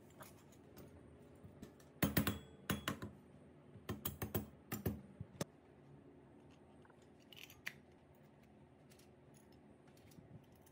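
Aluminium cylinder head of a Honda Super Cub C50 engine clacking against the cylinder and its studs as it is fitted by hand: a quick cluster of sharp metal clicks and knocks about two to five seconds in, then a few lighter clicks of handling.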